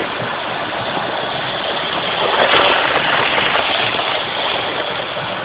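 Electric model train running on its track: a steady whirring rumble of the locomotive's motor and wheels, which swells for about a second near the middle.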